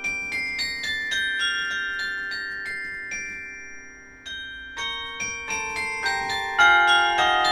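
Carillon bells playing a melody from the baton keyboard, struck notes ringing on and overlapping. A descending line of single notes is followed by a short lull about four seconds in, then fuller, louder chords.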